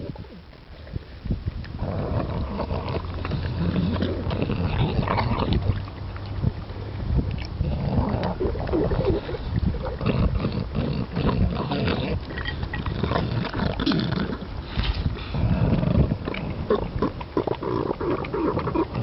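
British bulldog eating dry kibble from a bowl right at the microphone: irregular crunching and chewing. It is quieter for the first second or two.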